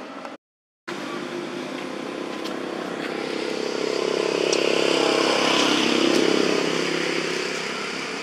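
A motor vehicle engine passing by, a steady hum that grows louder to a peak about five to six seconds in and then fades, after the audio drops out briefly near the start.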